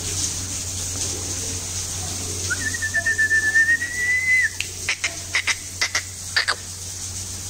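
A person whistles one steady, slightly wavering note for about two seconds, rising a little at the end, as a call to pigeons. A quick series of sharp clicks follows. A steady low hum and hiss run underneath.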